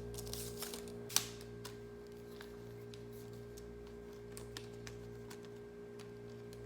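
Light clicks and taps from handling a plastic phone tripod, a few in the first second with the loudest just after it, then only scattered faint ticks, over a steady low hum.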